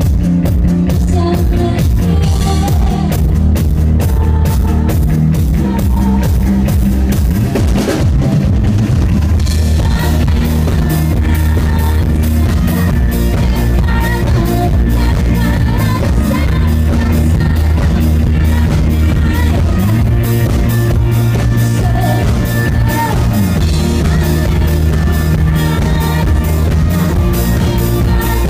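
Live electropop band playing loud: a steady dance drum beat under synthesizer and electric guitar, with a female lead singer's voice over it.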